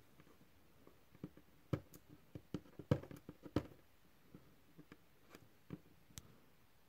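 Faint, scattered clicks and small crackles of fingers peeling a vinyl sticker off a motorcycle fairing, busiest in the middle of the stretch; no hair dryer is running.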